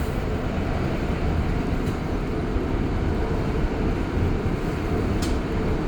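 REM light-metro train running, heard from inside the car: a steady rumble of the train under way, with two faint ticks, one about two seconds in and one near the end.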